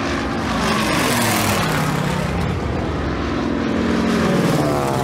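Single-engine propeller airplane flying low overhead, its engine drone falling in pitch as it passes.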